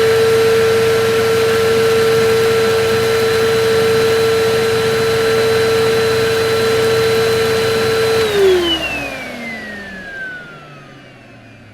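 Vacuum cleaner motor running with a steady high whine and a rush of air. About eight seconds in it is switched off, and the whine falls in pitch and fades as the motor spins down.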